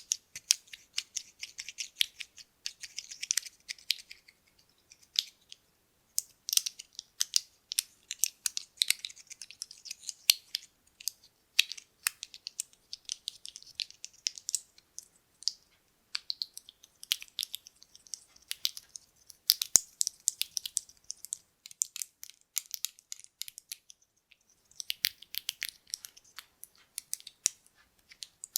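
Buttons clicking and clattering against each other as they are handled, in quick irregular runs of sharp clicks with a couple of short pauses.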